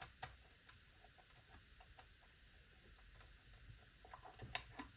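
Near silence with faint, scattered small clicks and taps from a screwdriver working the screw on a sewing machine's back cover. The clicks grow a little louder and closer together near the end.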